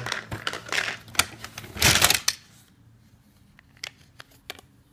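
Plastic toy train cars and track pieces being handled: a clattering run of clicks and rattles, then a few scattered single clicks.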